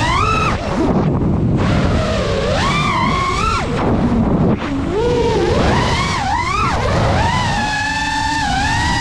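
FPV quadcopter's brushless motors and propellers whining, the pitch swooping up and down with each throttle punch and holding steadier near the end, over a rush of wind and prop wash on the onboard camera's microphone.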